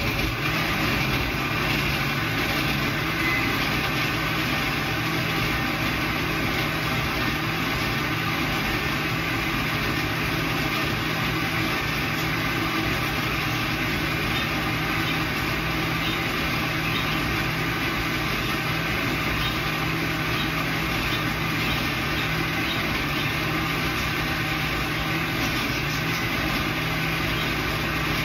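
Electric grinding mill (molino) starting up and then running steadily, grinding slowly; it has been failing to grind properly.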